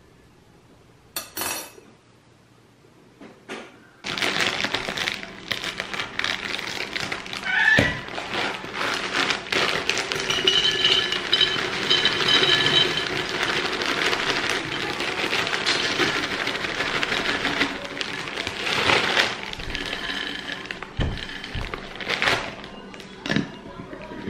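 Crisp wafer biscuits poured from a crinkling plastic bag into a glass jar, a dense clatter of biscuits hitting the glass and each other. Near the end the jar's plastic lid is handled.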